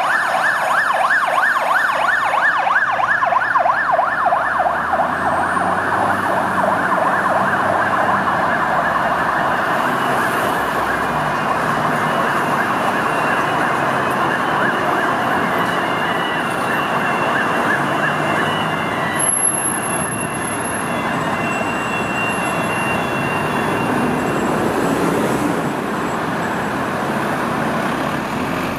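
Fire truck's electronic siren on a fast yelp, sweeping up and down about four times a second over city traffic noise. The siren grows fainter in the second half as the truck pulls away.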